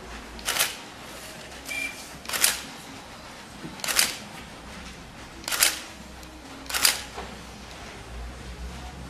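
Single-lens reflex camera shutter firing five times, about one and a half seconds apart. A short high beep comes just before the second shot.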